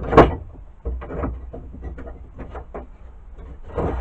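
A loud knock just after the start, then scattered small knocks, clicks and rubbing as objects are handled and set down on a workbench.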